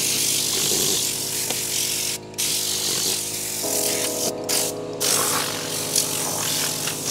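Tornador compressed-air cleaning gun blasting air into a car interior with a steady hiss. The hiss drops out briefly about two seconds in and twice more between four and five seconds in.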